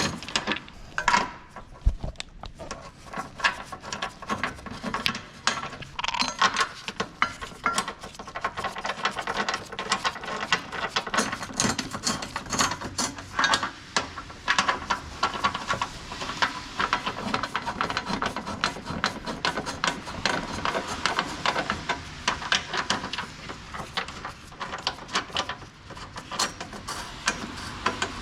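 Hand-tool work on car suspension parts: a long run of rapid, irregular clicks, taps and metallic clatter.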